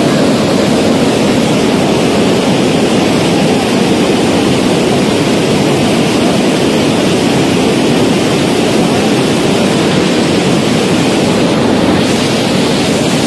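Muddy floodwater rushing in a torrent down a river channel: a loud, steady, unbroken rush of churning water.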